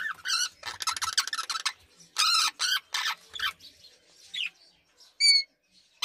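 Caged parakeet chattering in quick runs of chirps and warbles, imitating budgerigar chatter, with a few short single chirps and rising squeaks toward the end.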